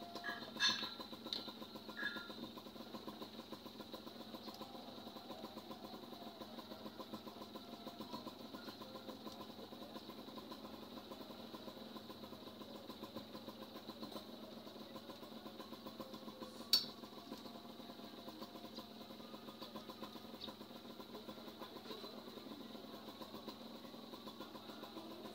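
Motorcycle engine idling steadily with an even, fast pulse, with a few sharp clicks: two near the start and a louder one about 17 seconds in.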